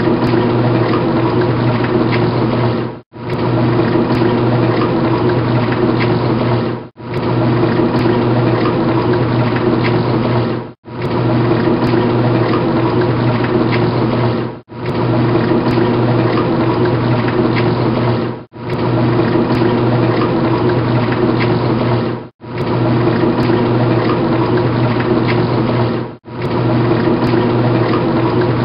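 Washing machine running: a steady motor hum with water sloshing through it. The same stretch of about four seconds repeats over and over, with a brief dropout between each.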